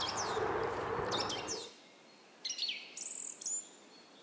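Small songbirds chirping and singing in short, quickly falling high notes, repeated several times. For the first second and a half a steady rustling noise lies under them and then cuts off suddenly.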